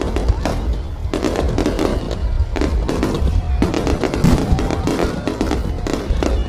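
High-altitude aerial fireworks bursting and crackling in a rapid series of bangs, mixed with background music that has a heavy bass.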